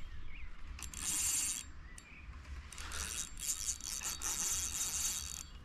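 Fishing reel clicking in two spells while a hooked fish is played and pulls for the reeds.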